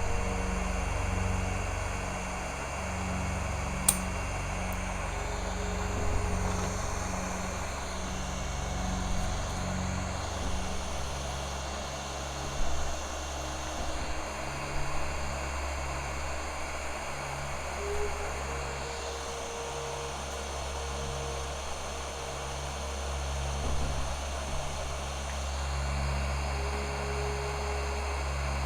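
Hot-air rework tool blowing steadily on the circuit board to melt the solder under an eMMC chip, a continuous airy rush over a low hum that pulses about twice a second. One sharp click about four seconds in.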